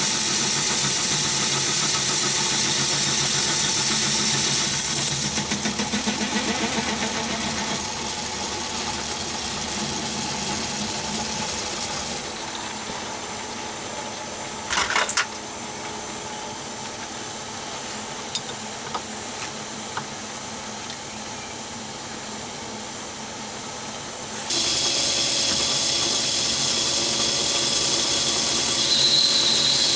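Myford ML7 metal lathe running under cut, turning a metal bar, a steady machine noise with a high whine. The sound changes abruptly about 24 seconds in, as the cut moves to boring inside the bar, and there is one brief sharp sound about halfway through.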